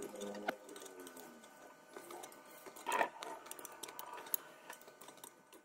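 Steel threaded screw of a rusty C-clamp being turned through its welded-on nut with a wrench: faint metallic scraping and ticking of the threads, with a sharper click about three seconds in.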